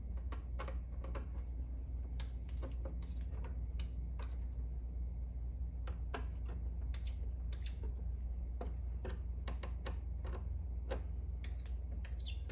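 Hand screwdriver tightening small screws into a plastic (PETG) emblem from behind a plastic body panel: a run of small irregular clicks and ticks, with short high squeaks of the screws and plastic about seven seconds in and again near the end.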